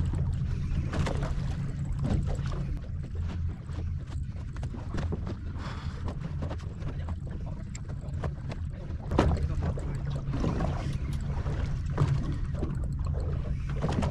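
A fishing boat's engine running with a steady low hum, with wind on the microphone and scattered knocks and clicks on the boat.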